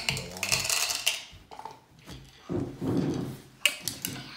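M&M candies rattling inside a plastic cup as it is shaken, then clattering out onto a ceramic plate, with a sharp knock near the end.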